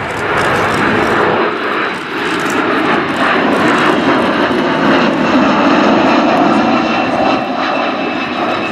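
Kawasaki P-1 maritime patrol jet's four IHI F7-10 turbofans heard as the aircraft flies past overhead. A steady high fan whine comes in about halfway through as it moves away.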